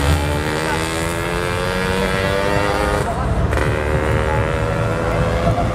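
Diesel engines of heavy Hino trucks running, with a low rumble. One engine's note rises slowly for about three seconds, breaks off briefly, then carries on steadily.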